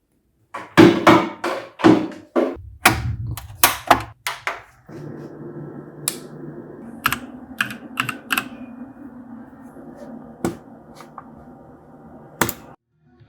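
Quick sharp clicks and knocks of hard plastic being handled, like tapping on a keyboard, for the first few seconds. A steady low hum follows, with a few isolated clicks.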